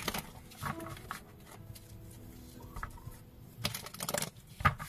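Oracle or tarot cards being handled on a table: scattered soft clicks and taps, then a quick run of rapid flicks from shuffling near the end.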